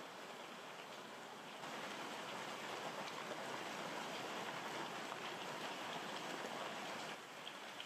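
Steady rain falling, a soft even hiss with scattered drop ticks. It gets louder about one and a half seconds in and drops back shortly before the end.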